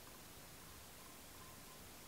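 Near silence: faint, steady hiss of room tone.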